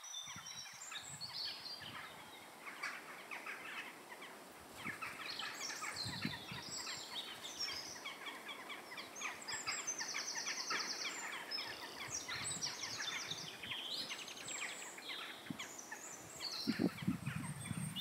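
Dusk chorus of several wild birds singing and calling over one another, with a fast, even trill about ten seconds in and a lower, louder call near the end.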